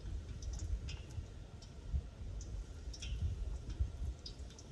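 Low, uneven rumble of wind on the microphone, with scattered faint, short high clicks.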